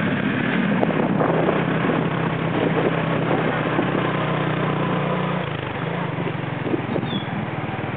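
Motorbike engine running steadily while riding, with wind rushing over the microphone; the engine note drops a little about five and a half seconds in.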